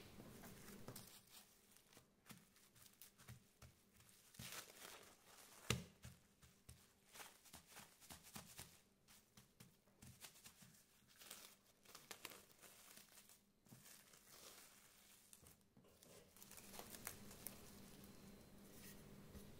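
Plastic cling film crinkling faintly as hands fold it around a slab of pastry dough and press it flat, in short irregular crackles with one louder crinkle about six seconds in.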